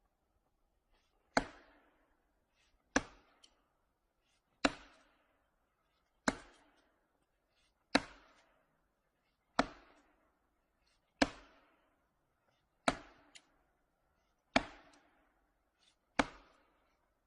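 Sharp impacts struck at a steady pace, about one every second and a half, each with a short ringing tail that fades quickly.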